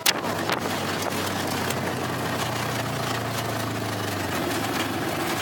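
Polaris RZR 900 side-by-side's twin-cylinder engine running steadily, its note stepping up higher about four seconds in.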